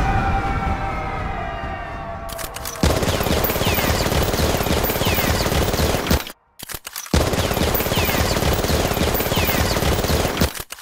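Gunfire sound effect edited in over the video. A ringing tail fades away for the first couple of seconds, then come two long bursts of rapid automatic fire, each about three and a half seconds, broken by a brief silence.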